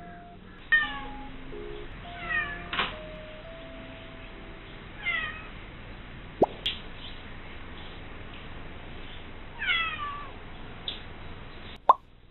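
Calico mother cat meowing loudly, four calls a few seconds apart, each falling in pitch. She is crying to be given chicken to carry off.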